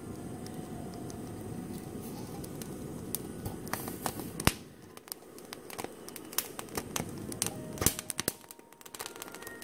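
Gas stove burner flame rushing steadily under a poblano pepper charring directly on the burner, with sharp crackles and pops from the blistering skin, thickest in the second half. The flame's rush eases a little about halfway.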